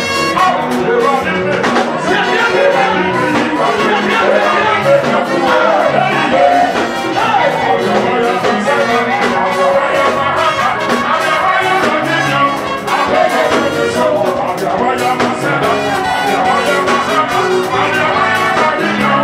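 Live church praise band music played loud, with a steady driving beat.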